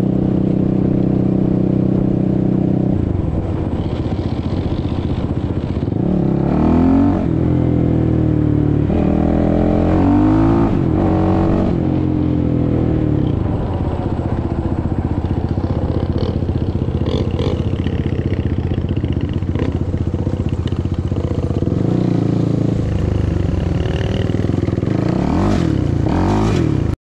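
Suzuki LTR 450 quad's single-cylinder four-stroke engine running under way, rising and falling in pitch with the throttle several times around six to twelve seconds in and again near the end. It cuts off abruptly at the very end.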